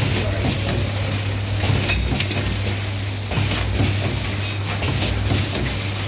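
Namkeen pouch packing machine with a volumetric cup filler running: a steady low motor hum with repeated clicks and clatters from its filling and sealing cycle.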